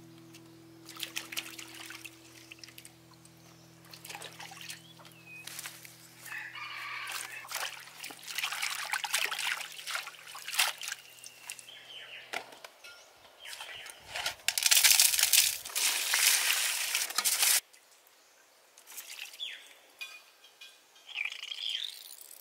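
Water splashing and pouring in a metal basin as vegetables and mushrooms are washed, with small knocks and clicks from handling them; the loudest part is a rush of pouring water lasting about three seconds, just past the middle. A rooster crows in the background.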